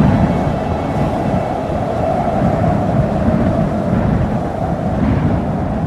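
Steady, loud rumbling noise like thunder or a storm, with no singing, closing out the song's track.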